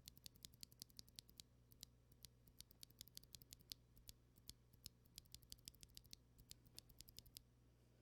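Charue Design Popcorn tactile mechanical keyboard switches, stock and unlubed, pressed over and over in a sound test: faint, sharp plastic clacks of press and release, several a second, stopping a little before the end.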